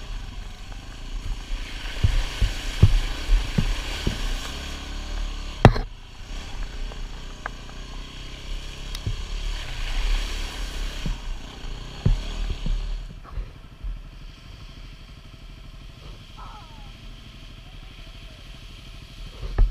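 Yamaha WR250R single-cylinder four-stroke dirt bike riding a wet, puddled trail: the engine runs steadily under stretches of hiss as the tyres go through water, with knocks from the bike and camera over bumps and one sharp knock about six seconds in. It goes quieter for the last several seconds.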